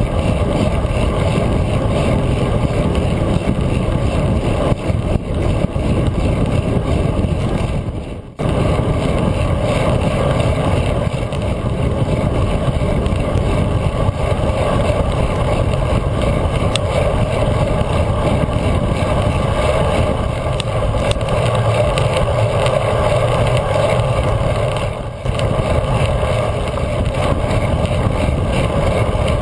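Wind rushing over a GoPro camera's microphone on a bicycle ridden at speed, a loud, steady rumble. It drops out briefly about eight seconds in and again later.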